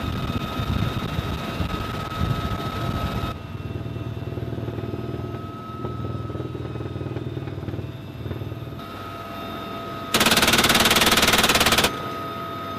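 UH-1Y Venom helicopter noise with a steady whine and low rumble, then a door-mounted machine gun fires one loud, very rapid burst of about two seconds near the end.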